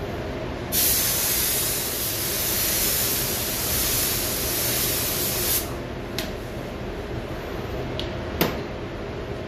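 Compressed-air gravity-feed paint spray gun hissing as it sprays paint onto a car panel for about five seconds, then cutting off sharply. Three short trigger bursts follow.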